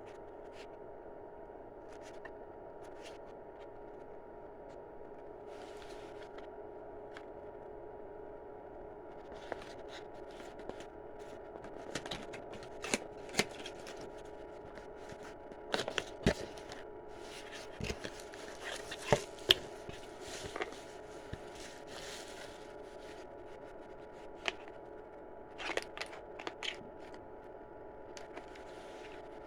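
Scattered scrapes, rustles and sharp clicks of hands handling objects, bunched through the middle, over a steady electrical hum.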